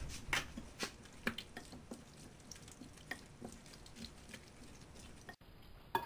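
Wooden spoon stirring cream into fried onions in a ceramic bowl: irregular wet clicks and taps of the spoon against the bowl, busiest in the first second and a half, with a sharper tap near the end.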